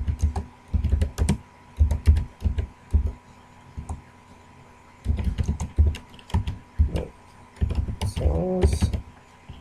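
Typing on a computer keyboard: runs of keystrokes in several bursts with short pauses between them.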